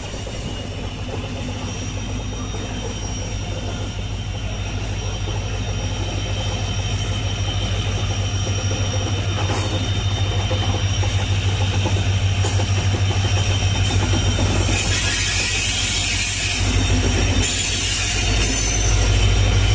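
EMD WDP-4D diesel-electric locomotive, with a two-stroke V16 engine, running as it slowly rolls through the station, growing steadily louder. A thin steady high tone sits above the rumble, and bursts of hiss come near the end.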